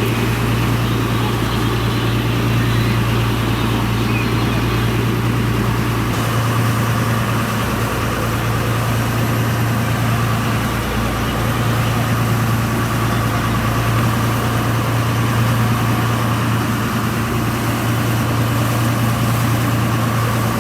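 Fishing boat's engine running steadily at a constant pitch, a low droning hum with a rush of wind and water over it.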